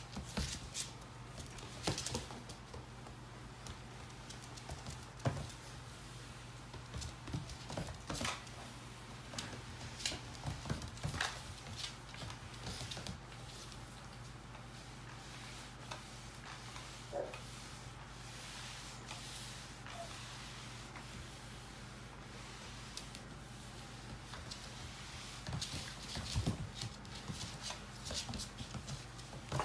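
A pit bull puppy's claws clicking and scrabbling on a laminate plank floor as it scampers and pounces, mixed with a flat mop pad sliding over the floor. The tapping is busiest in the first dozen seconds and again near the end, sparser in between, over a steady low hum.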